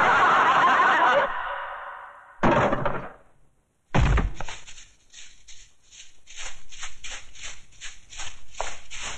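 Audience laughing and clapping, fading away over the first two seconds, with a short second burst. About four seconds in, one heavy thud, then a soft regular pulse about three times a second.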